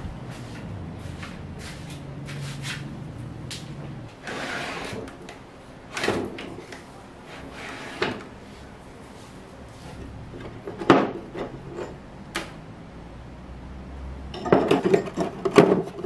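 A wooden drawer sliding open, then knocks and clinks as rusty iron tools (axe heads, a cleaver, chisels) are picked up and shifted inside it. A quick run of metal-on-wood clatter comes near the end.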